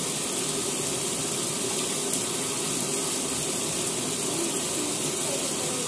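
Steady hiss of background noise at an even level throughout, with faint wavering voice-like tones near the end.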